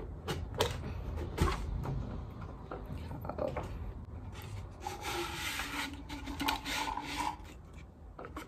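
Cardboard gift tube being opened by hand: cardboard rubbing and scraping with a few light taps and clicks, then a longer scraping slide of about two seconds as the cardboard insert is drawn out of the tube.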